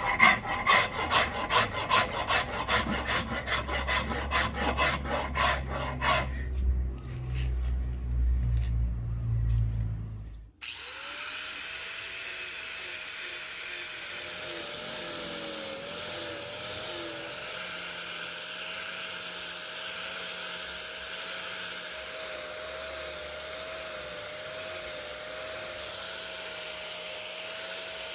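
A hand file rasping along a Siamese rosewood axe handle in quick, even strokes, growing softer about six seconds in. About ten seconds in it cuts to an electric angle grinder with a sanding disc running steadily with a whine, sanding the handle.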